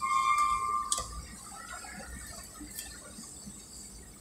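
A single steady high tone, about a second long, starting suddenly and ending with a sharp click, followed by a low, even background hum.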